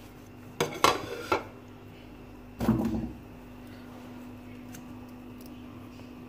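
Metal spoon knocking and scraping against a cooking pot while scooping dry minced-meat filling: a quick run of clinks about a second in, then a duller knock near three seconds, over a steady low hum.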